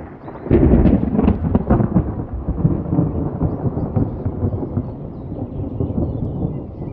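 A thunderclap about half a second in, sharp and crackling at first, then rumbling on and slowly fading.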